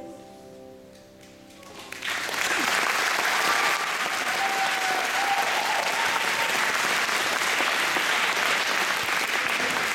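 A choir's final held chord fades away, and about two seconds in the audience breaks into steady applause.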